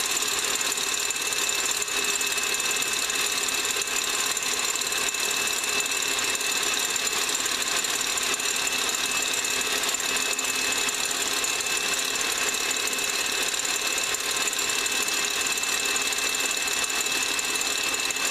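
KitchenAid Classic Plus stand mixer running steadily on high, its wire whisk beating egg whites in a stainless steel bowl toward stiff peaks; an even motor whir with a constant high whine.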